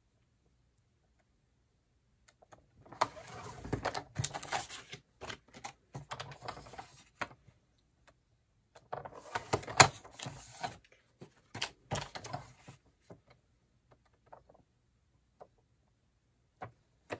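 A sliding paper trimmer's cutting head is run along its rail through a laminating sheet, twice, each pass a few seconds of rapid clicking and scraping. The plastic sheet crackles as it is handled, with a few small clicks between the cuts.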